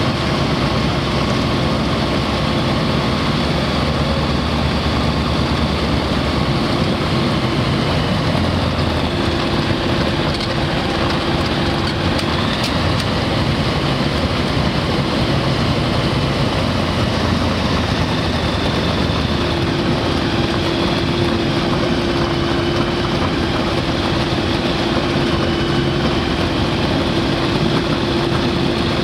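Single-engine light aircraft's piston engine and propeller running steadily while taxiing, heard from inside the cockpit as a loud, unbroken drone.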